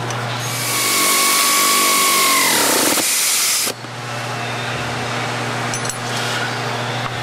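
Power tool running down a transmission-mount bolt for about three seconds, its whine falling in pitch as the bolt tightens, then cutting off suddenly.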